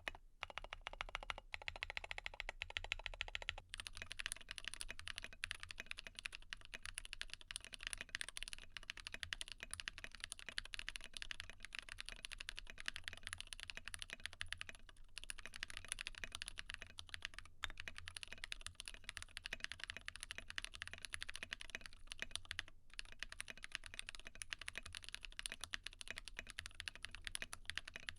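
Continuous fast typing on a GMMK Pro mechanical keyboard with Glorious Panda tactile switches and SA-profile PBT keycaps, a dense run of key clacks. The tone of the typing changes a few seconds in, and there are a few very short pauses later on.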